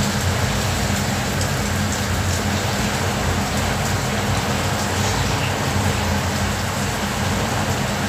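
Steady driving noise inside a moving car: a rush of tyres and road with a low, even engine hum.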